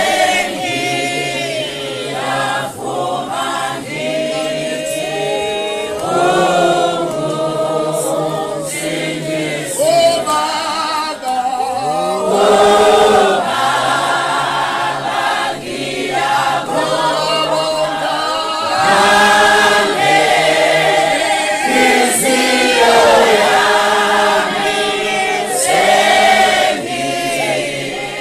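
Choir singing a hymn unaccompanied, several voices in harmony holding long, rising and falling phrases.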